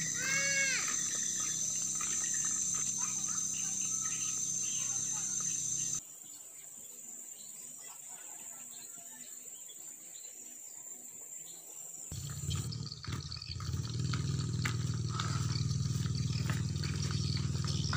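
Insects droning at a steady high pitch over a low hum, with a short rising-and-falling call about half a second in. The sound drops away for several seconds in the middle, then a louder low steady rumble comes in for the last third.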